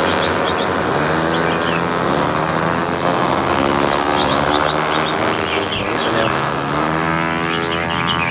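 Several racing cars' engines revving together, their pitch rising and falling as they accelerate and ease off, with short bird chirps above them.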